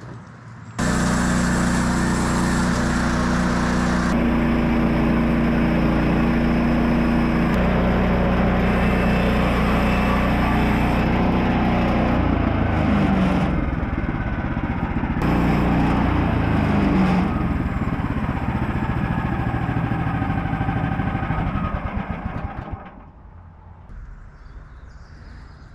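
Engine running steadily at a fixed speed. It cuts in abruptly about a second in, shifts pitch several times with short rising and falling glides, and dies away near the end.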